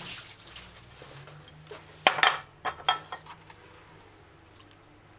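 A short rush of water at the start, then a handful of sharp clinks and knocks of a glass cup and a ceramic bowl being handled about two to three seconds in, while fish chunks are washed in vinegar water.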